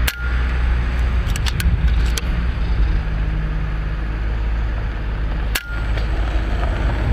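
FX Maverick PCP air rifle firing twice, about five and a half seconds apart, each sharp shot followed by a brief ring. A few light clicks come a second or two after the first shot, over a steady low rumble.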